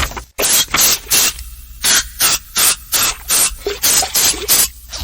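Squidward's cartoon throat-clearing, bass-boosted and distorted: a quick run of harsh, rasping hacks, about three a second.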